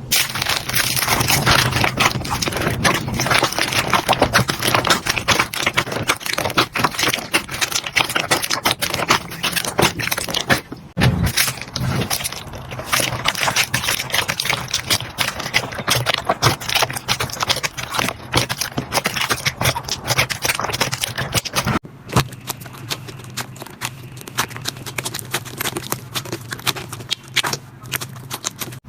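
Slime being squeezed and pressed by hand, a dense run of crackling clicks and pops, with brief breaks about a third and two thirds of the way through.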